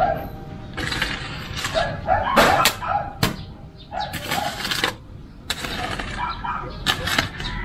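Metal shovel digging into soft, damp garden soil: a series of irregular strokes as the blade stabs in, scrapes and tosses dirt, with one longer scrape about four seconds in.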